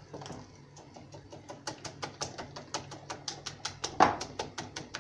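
A whisk beating egg-and-flour batter in a glass bowl, clicking against the glass in a rapid steady rhythm of about five or six strokes a second, with one louder knock about four seconds in.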